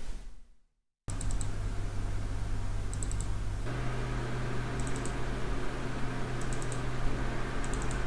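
Steady whir of the Mini-ITX PC's cooling fans under a full Cinebench R23 CPU load, with a low hum. The sound cuts out for a moment near the start, and the hum steps up slightly in pitch about four seconds in. Faint high ticks recur about every one and a half seconds.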